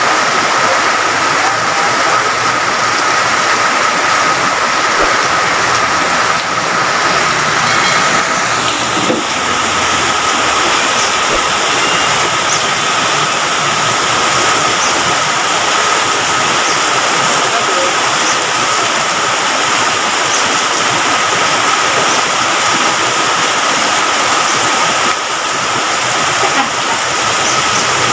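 Heavy rain pouring steadily, a dense even hiss of water, with a thin steady high tone above it.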